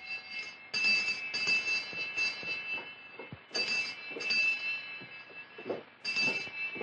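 Small wall-mounted bell ringing in quick repeated bursts, with brief pauses between them.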